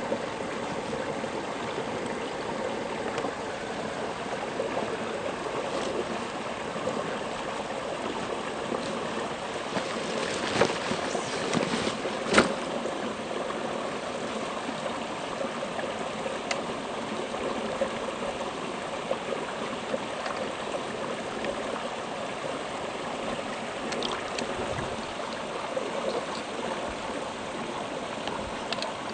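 Water of a shallow brook running and trickling steadily. A few light knocks come around the middle, with one sharp click.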